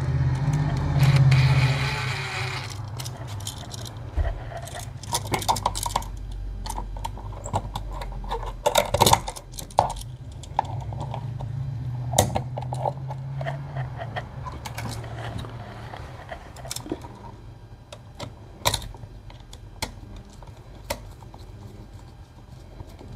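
Small metallic clicks and rattles from handling a new electrical outlet and stiff 14-gauge copper wires as the looped wire ends are hooked onto the outlet's terminal screws. There is a rustling in the first few seconds, then scattered sharp clicks.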